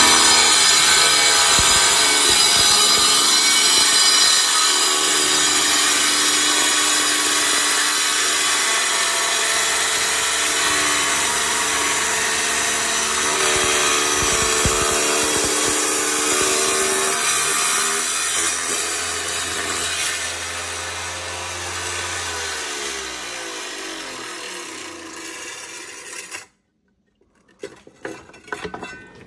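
Power saw cutting through a geode: a loud, steady grinding whine. Later on the sound eases and falls in pitch as the motor winds down, then cuts off suddenly.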